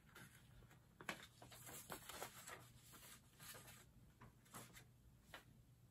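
Near silence, with faint rustles and light ticks from a paper instruction leaflet being handled.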